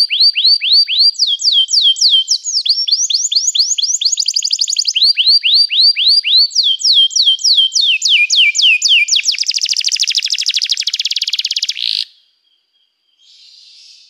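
Domestic canary singing: rapid runs of repeated down-sweeping high notes, switching to a new phrase every second or so. It ends in a very fast high trill that cuts off suddenly about twelve seconds in, and a brief faint noise follows near the end.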